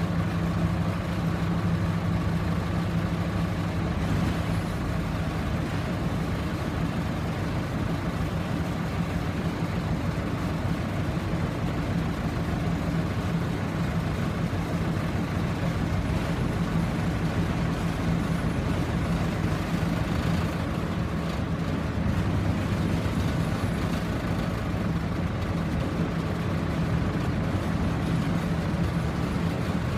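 Heavy engine of a crane running steadily at constant speed, a low, even drone that does not change.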